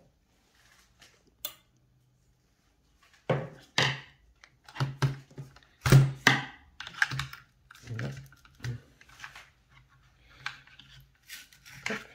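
Irregular clicks and knocks of hard plastic and metal parts handled on a table: a radio-controlled car's chassis turned over and set down, and its motor mount worked loose. Quiet for the first three seconds, then a busy run of clicks, the loudest knock about six seconds in.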